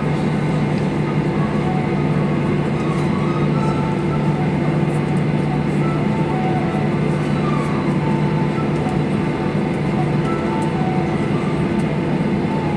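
Steady cabin hum of a Boeing 737-800 airliner on the ground, heard from a window seat over the wing. The jet engines run at idle with a low constant drone and an even rush of air, holding level throughout.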